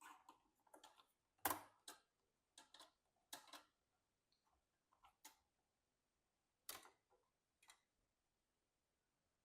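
Scattered metallic clicks and taps of a screwdriver and screws driving the motherboard's mounting screws into a PC case, about nine in all, the loudest knock about one and a half seconds in and sparser in the second half.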